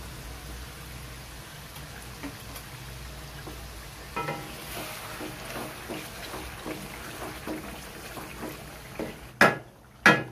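Chicken pieces sizzling in tomato gravy in a karahi. From about four seconds in, a wooden spatula stirs and scrapes the pan in repeated strokes, and two loud knocks come near the end.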